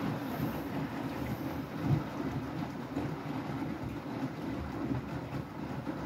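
Beko WTK104121W front-loading washing machine drum turning laundry through a high water level during its rinse: a steady low running sound with water sloshing against the door glass, one louder surge about two seconds in.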